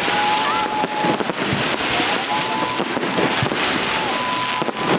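A fireworks barrage, with a dense run of overlapping pops and crackles. Thin high whistling tones, some steady and some gliding upward, sound among the bursts.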